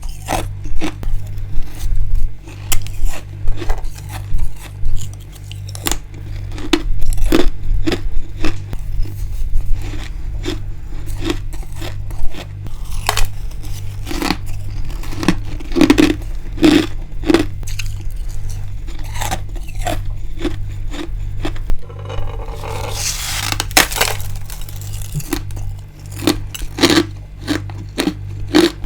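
Close-miked crunching of built-up freezer frost and hard ice being bitten and chewed, a string of sharp irregular cracks with a longer grinding crunch about two-thirds of the way through. A steady low hum runs underneath.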